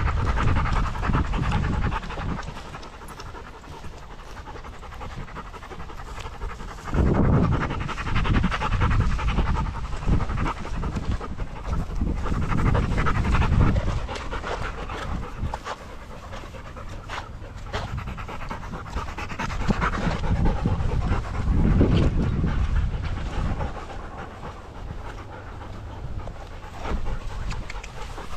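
Dog panting, fast and close by, with stretches of low rumble now and then.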